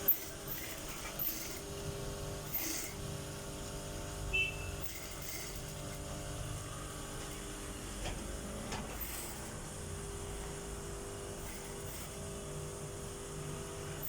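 Industrial sewing machines running with a steady motor hum and a few sharp clicks.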